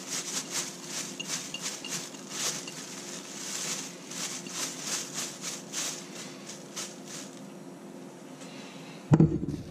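Plastic bag crinkling in quick repeated shakes as whitebait are tossed in seasoned corn flour to coat them. A loud bump comes about nine seconds in.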